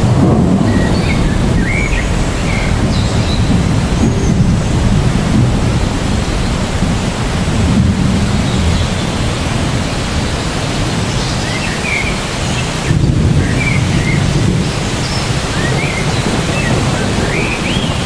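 Heavy rain falling on trees: a dense, steady hiss with a low rumble underneath, and a few faint short high chirps here and there.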